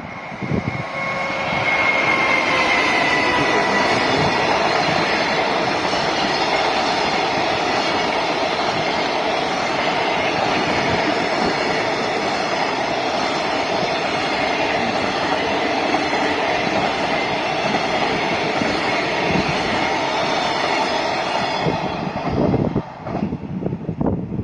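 Freight train passing close by: a long string of wagons rumbling and clattering over the rails for about twenty seconds, dying away near the end. In the first few seconds a thin, high held tone slides slightly down in pitch.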